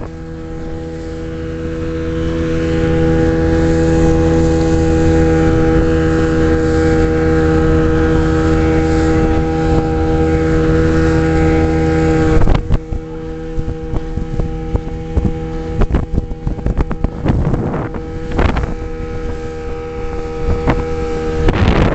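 Speedboat engine running at a steady pitch at speed, with rushing wind and water noise. About halfway through the sound drops abruptly; the engine carries on more faintly under a run of sharp knocks and bumps.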